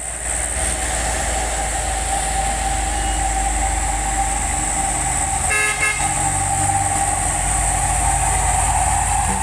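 Heavy trucks' diesel engines running as they climb the hill, with a short vehicle-horn toot about five and a half seconds in.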